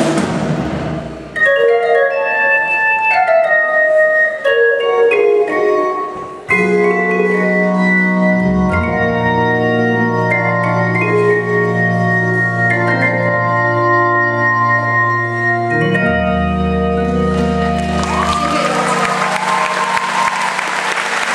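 Live band's instrumental outro: a stage keyboard with an organ sound plays held melody notes. Bass notes join about six seconds in, and audience applause swells near the end as the final chord dies away.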